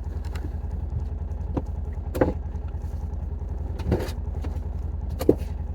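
A vehicle engine running steadily with a low, even rumble, with a few short knocks or rattles over it.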